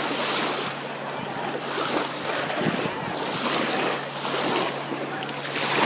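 Small waves washing onto a lake beach, a fresh wash every second or two, with wind on the microphone.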